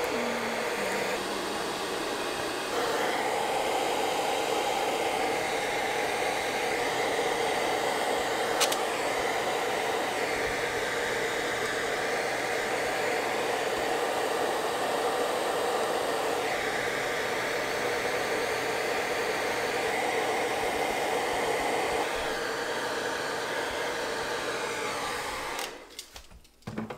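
A small electric blower motor running steadily with a whooshing whir, its tone shifting a few times; it stops near the end.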